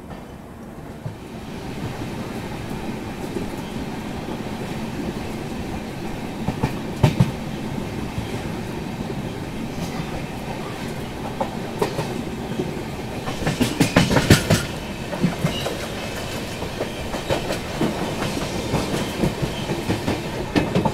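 Indian Railways express coach running on the track, heard from its open door: a steady rumble of wheels on rail with clickety-clack over the rail joints. It swells about two seconds in, and there is a quick run of clacks about seven seconds in and a louder cluster of clacks around fourteen seconds.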